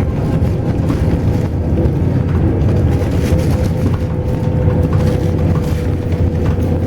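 Intercity bus under way: a steady low engine and road rumble with a constant thin whine.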